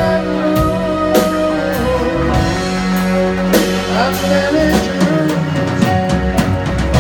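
Live band music: electric guitar, keyboard, bass guitar and drum kit playing together, with a held, wavering sung melody over the top and regular drum and cymbal hits.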